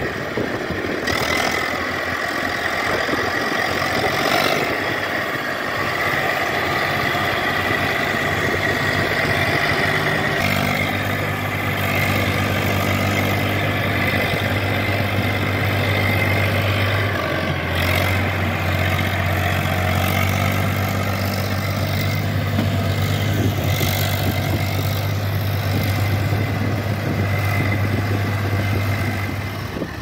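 Diesel tractor engine, an Eicher 380, running steadily, with a steady high whine over it through roughly the first half. There are a few abrupt changes along the way.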